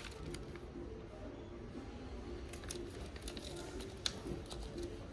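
Quiet store ambience with faint distant voices, and light creaks and taps of a woven wicker hamper lid being handled, with one sharp click about four seconds in.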